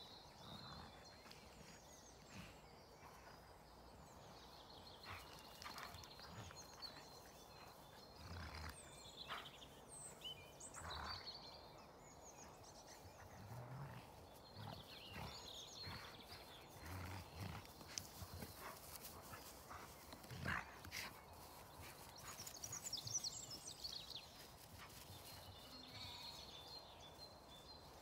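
Two dogs play-wrestling on grass: scuffling with occasional low growls, several in the middle stretch. Birds chirp in the background.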